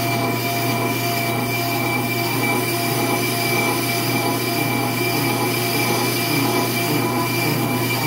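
Ammco brake lathe running with a disc brake rotor mounted on its arbor: a steady high-pitched whine with a low hum beneath.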